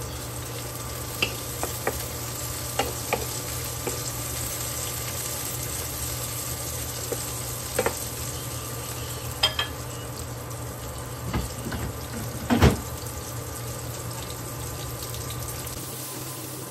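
Sliced tomato, peppers and onion sizzling in a nonstick frying pan while a wooden spatula stirs them, with scattered taps and scrapes of the spatula on the pan. A steady low hum runs underneath.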